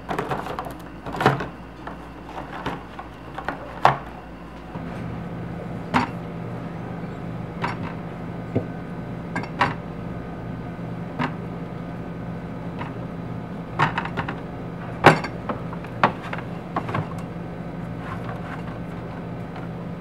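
Small plastic juice bottles knocking and clacking as they are handled and set down into a plastic storage bin and onto refrigerator shelves, in scattered sharp knocks. A steady low hum, from the open refrigerator, comes in about five seconds in and runs under them.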